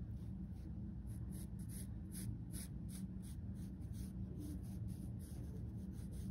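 Pencil scratching on thick watercolor paper in short repeated strokes, about three a second, over a low steady background hum.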